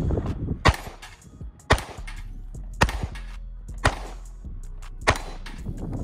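Five pistol shots from a Glock, fired about a second apart at steel plate targets.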